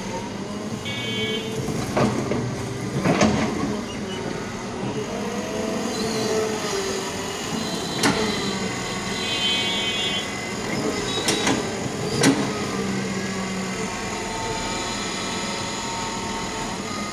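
Kobelco crawler excavator's diesel engine running steadily, its pitch dipping and rising under hydraulic load as the arm digs and swings, with about five sharp knocks as the bucket works the soil.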